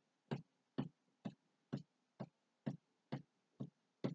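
A steady beat of short, even clicks, about two a second, keeping a regular tempo.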